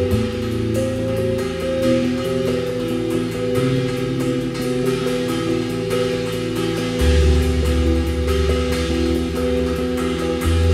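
Band music with guitar and drum kit over steady sustained notes; a strong low bass note comes in about seven seconds in.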